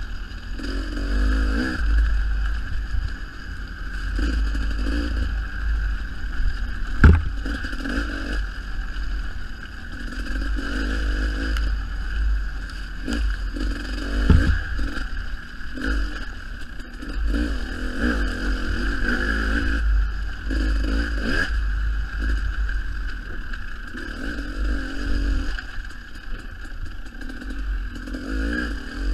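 Dirt bike engine revving up and falling back again and again as the rider works the throttle, with wind buffeting the microphone. Two sharp knocks stand out, about seven and fourteen seconds in.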